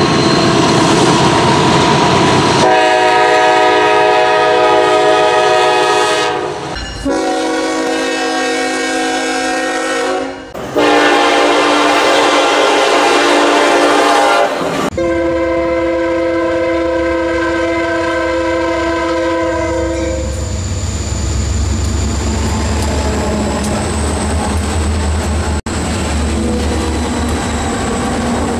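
Diesel locomotive air horn sounding four long blasts for a grade crossing, then the train rolling past with a steady low rumble and wheel-on-rail noise.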